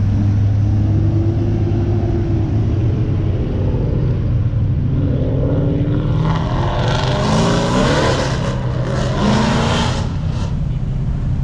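Car engines running at an intersection, one passing at the start, with a steady low engine drone throughout. From about six to ten seconds in a car accelerates hard, its engine pitch climbing over a loud rush of exhaust noise.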